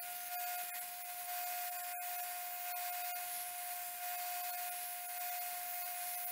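Belt grinder running with a steady whine while the rusty steel of an old circular saw blade is pressed against the belt to shape a hoe blade, giving a continuous grinding hiss. The hiss breaks off briefly about two seconds in.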